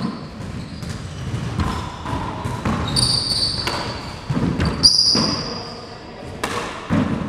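A handball rally: the ball smacking off the court's walls and wooden floor in a string of sharp impacts, with sneakers squeaking on the floor twice around the middle.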